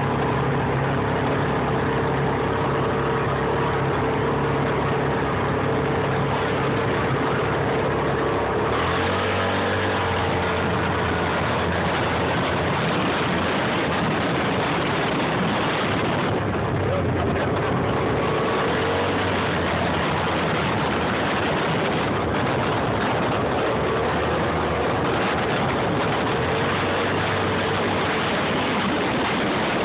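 Engine of an off-road vehicle running under way along dirt trails, heard from on board over a steady rushing noise; its note drops suddenly about nine seconds in and changes again a few seconds later.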